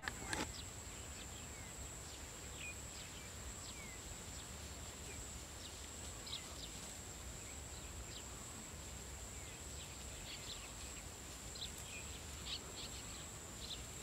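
Open-field ambience: a steady high insect drone with scattered short bird chirps and a low rumble, and a couple of sharp knocks right at the start.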